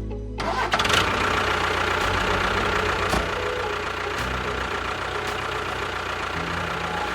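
A motor running steadily, a dense engine-like drone with a few steady tones, cutting in abruptly just after the start and cut off abruptly at the end.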